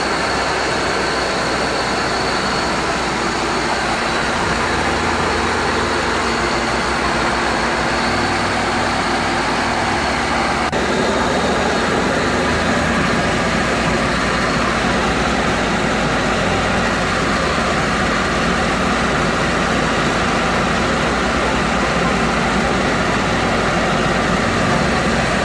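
Mitsubishi Lancer's 4G13 inline-four petrol engine idling steadily, just after an oil change and refill.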